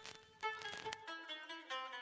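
Soft background music: a plucked-string melody of short notes in quick succession.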